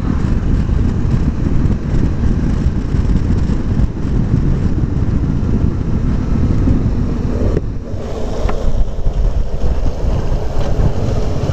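Motorcycle riding along: wind rushing over the microphone over a steady low engine and road rumble, with a brief change in the sound about eight seconds in.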